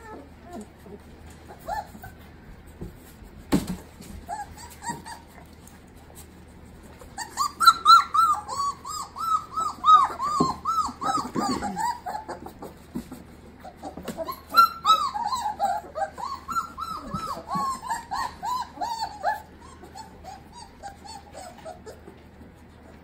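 A litter of Great Dane puppies squealing and whining in quick, high-pitched, overlapping cries while they jostle to nurse. The cries come thick and fast from about a third of the way in, then thin to occasional whines near the end. A single knock sounds a few seconds in.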